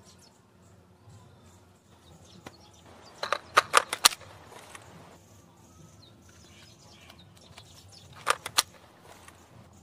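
Light clicks and knocks from a handmade paper AK-74 model's removable magazine being handled: a quick cluster of several clicks about three seconds in, and two more near the end.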